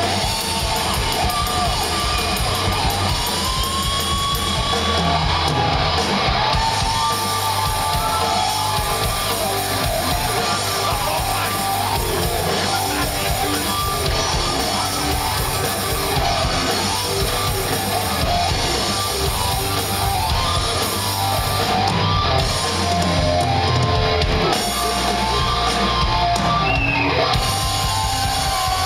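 Rock band playing live in a large hall: electric guitars and drums at full volume without a break, heard from among the audience.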